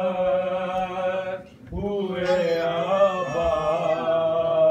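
Voices chanting a noha, the Shia lament recited in Muharram, in long, drawn-out sung notes, with a short break about a second and a half in before the chant resumes.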